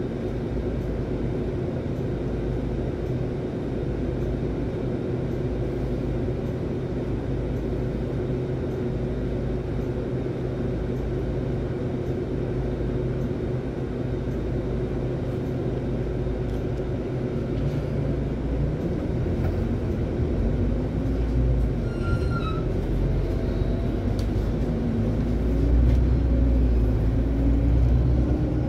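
City bus engine running, heard from inside the bus near the front: steady at first while the bus waits or creeps, then from a little past halfway it pulls away and accelerates, the engine note rising in pitch and getting louder.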